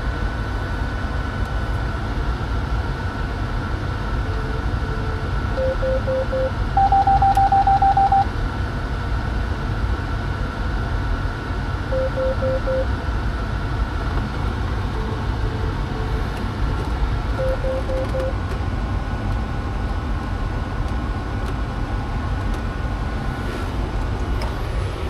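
Short runs of electronic beeps at a few different pitches, typical of tractor cab electronics, over a steady low machine hum with a faint high whine. The loudest is a rapid run of higher beeps about seven seconds in, and shorter triple beeps come at about six, twelve and eighteen seconds.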